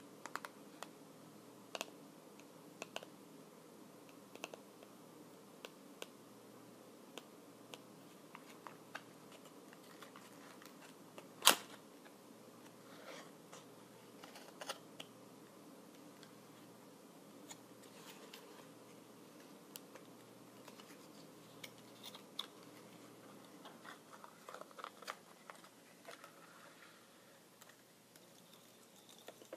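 Fingertips tapping and clicking slowly and irregularly on hard objects, with one much louder sharp click about eleven and a half seconds in and a busier run of soft ticks near the end.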